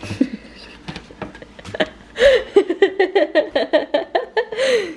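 Pieces of pre-cut cookie dough tumbling off a paper tray onto a metal baking sheet with a few light clicks and taps, then a person laughing for nearly three seconds in quick regular 'ha' pulses.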